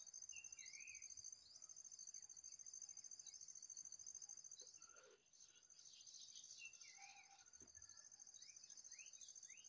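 Faint outdoor ambience: a steady, high, rapidly pulsing insect trill that stops about halfway through and returns faintly near the end, with scattered short bird chirps.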